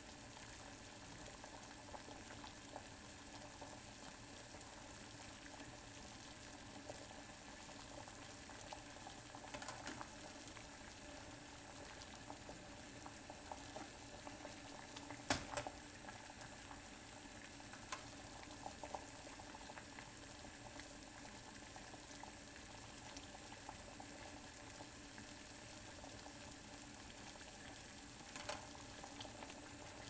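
Water at a rolling boil in a stainless steel saucepan on a gas burner, bubbling steadily. A few faint clicks sound over it, and one sharp click about halfway through.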